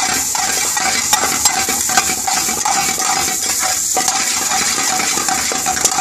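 Chopped button mushrooms, onion and peppers sizzling in ghee and oil in a frying pan while being tossed and stirred with a metal spoon. The spoon clinks and scrapes against the pan now and then.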